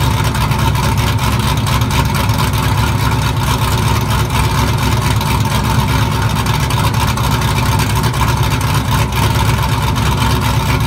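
Chevrolet TrailBlazer SS's 416-cubic-inch stroker V8 idling steadily through its exhaust in its first minutes after a cold start, with an even, fast low pulse and no revving.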